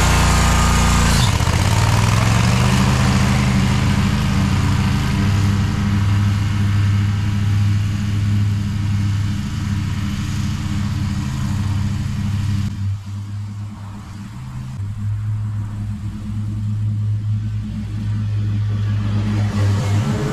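Scag Tiger Cat zero-turn mower running steadily at mowing speed with its blades cutting grass; the machine has nearly 8,000 hours on it. The engine sound dips about two-thirds of the way through, then builds again.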